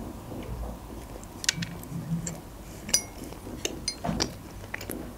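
Close-miked chewing of a soft sprinkle-topped donut, with scattered wet mouth clicks, and a couple of light clinks near the middle.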